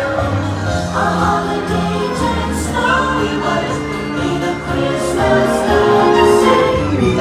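Christmas parade soundtrack playing over outdoor loudspeakers: a choir singing over an orchestral backing, with a steady bass line.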